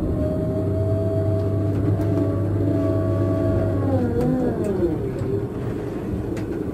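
Scania K420 coach's diesel engine running at steady revs, then the revs fall away about four seconds in.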